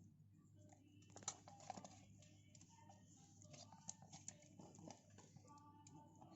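Faint, wet squishing and light clicks of hands rubbing a masala marinade paste into a raw whole chicken.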